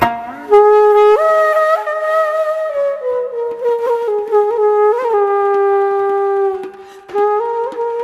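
Tibetan music: a solo wind instrument playing a slow melody of long held notes that step up and down, with quick grace-note ornaments, dipping briefly about seven seconds in.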